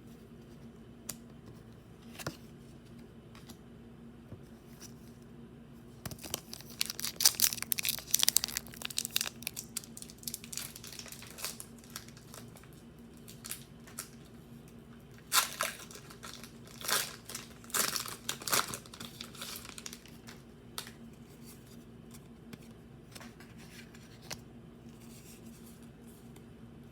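Pokémon booster pack foil wrappers torn open and crinkled by hand, in two bouts of tearing and rustling with a few scattered clicks between them, over a steady low hum.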